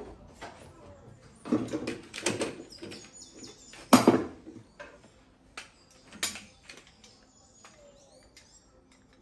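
Workshop handling noises: knocks, clicks and rustling as tools and parts are picked up and set against bare sheet metal, with one sharp knock about four seconds in, the loudest. A few short high chirps sound around the middle and near the end.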